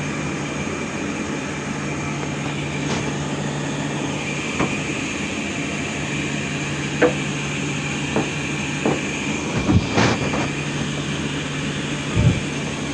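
Sawmill machinery running with a steady hum and whine, with several short knocks and clatters over the second half.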